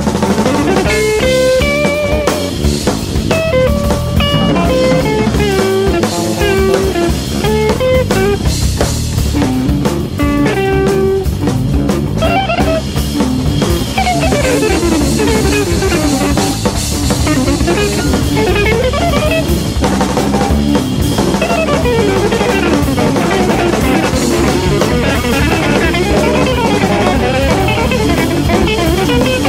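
Live jazz band: a guitar playing a single-note melody over a drum kit with cymbals. About halfway through, the guitar breaks into fast runs sweeping up and down.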